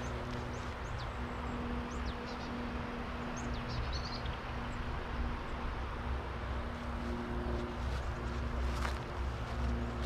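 Outdoor ambience with a steady low mechanical hum of several constant tones, likely a running engine or machine, under a noisy wash. Short high, falling bird chirps come several times in the first four seconds.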